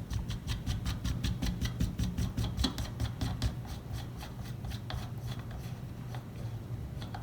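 Right-hand cone of a Sturmey-Archer S1C hub being unscrewed along the axle thread, with a fast run of light metallic clicks, about five a second, that thins out after about five seconds.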